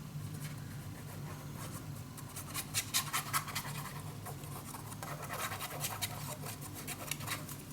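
Cardstock being handled and pressed into place on a work surface: soft scratching and rustling with scattered small ticks, over a low steady hum.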